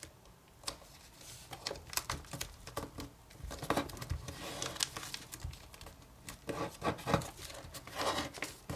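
Origami paper crinkling and crackling in short, scattered rustles as a flap of the multi-layered model is folded down and creased flat by hand.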